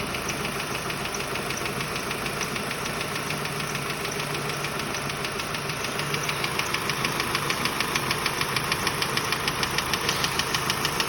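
Hyundai Sonata's 2.4 G4KC inline-four idling with a rapid, regular knock that grows louder and more distinct about halfway through. The knock persists despite new timing-chain tensioners, a replaced cylinder head and normal oil pressure, and its cause is unknown to the owner.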